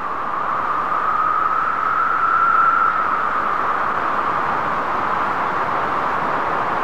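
Steady rushing noise, rising slightly in pitch two to three seconds in and then settling back.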